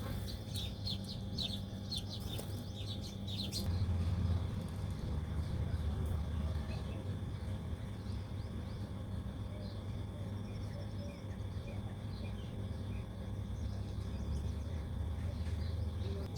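Small birds chirping: a quick run of short, high chirps for the first few seconds, then only scattered faint chirps. A steady low hum runs underneath.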